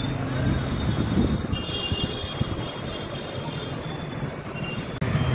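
Busy street background noise: a steady low engine hum from nearby vehicles mixed with general bustle.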